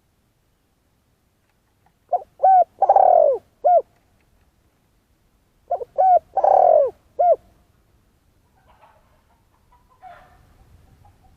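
Spotted dove cooing: two phrases, each of four notes: two short coos, a longer falling coo, then a short final coo.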